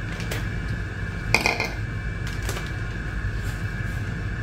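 Soft handling sounds of a plastic zipper bag as raw pork ribs are dropped into it one at a time, with a brief sharper clink about a second and a half in, over a steady low hum.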